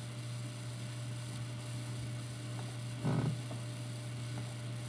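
Steady electrical mains hum in the recording, with a brief soft sound about three seconds in.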